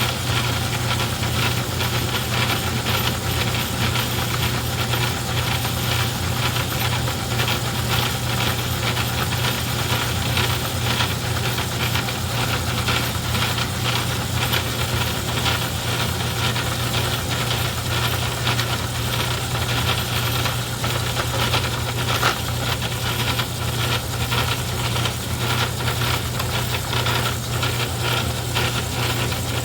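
Craftsman 109 metal lathe running under motor power: a steady hum with a continuous fast rattle from its drive and gear train.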